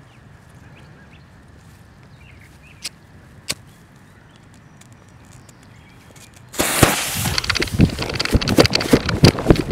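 Two short sharp clicks over quiet outdoor background. About two-thirds of the way in, loud rustling and irregular heavy thumps start suddenly and keep going: a person running with a handheld camera through grass.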